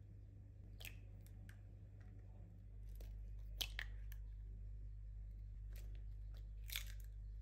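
Eggshells being cracked by hand and pulled apart: a few short, sharp cracks and snaps, the loudest a pair about three and a half seconds in and another near the end.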